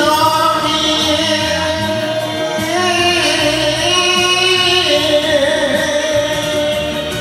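A man singing an enka song to a karaoke backing track, holding long drawn-out notes with smooth slides between them.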